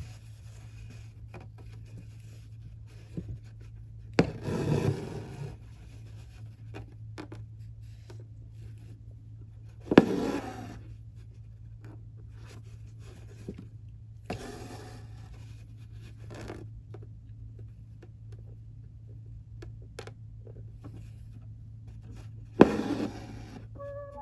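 Embroidery needle punching through fabric held taut in a hoop, each time with a sharp pop followed by a rasping pull as the floss is drawn through. This happens four times, about 4, 10, 14 and 22 seconds in, over a low steady hum.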